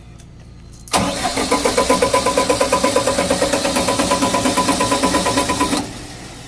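Keypower generator's electric starter cranking the engine for about five seconds, a quick even beat of compression strokes over a steady starter whine, then cutting off suddenly without the engine catching: the genset is hard starting.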